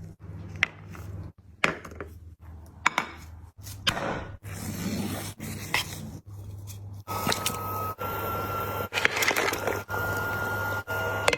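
Sharp clicks, knocks and scraping of tableware and food over a steady low hum, with a faint steady high tone from about seven seconds in.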